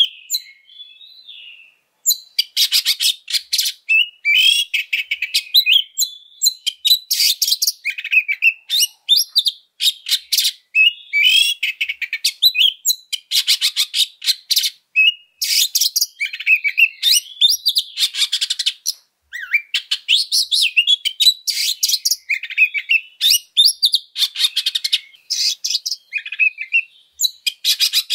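Oriental magpie-robin singing an aggressive fighting song: loud, rapid phrases of harsh rattling chatter mixed with clear whistled notes, one phrase after another with only short breaks. The song starts after a brief pause near the beginning.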